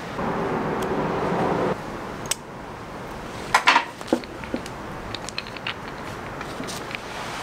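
Small clicks and taps of hands handling a wooden natural-fork slingshot while fitting its flat rubber bands, with a few sharper knocks about halfway through. A steady rushing noise fills the first second and a half and stops abruptly.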